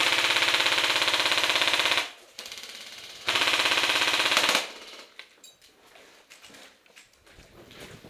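Airsoft gun firing full-auto in two long, rapid bursts, the second starting about a second after the first ends, emptying the magazine.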